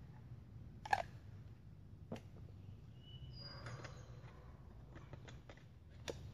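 Faint handling noise from a knife and gear: a few sharp clicks and knocks, the loudest about a second in, over a low steady rumble.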